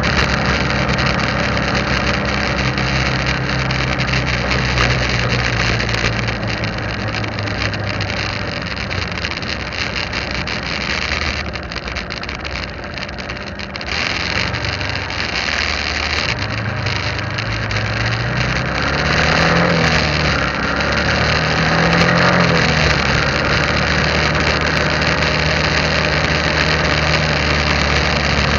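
Motorbike riding along a paved street: steady engine running under wind and road noise, easing off briefly before the middle, then the engine note rising and falling a couple of times in the later half, with other motorbikes passing close by.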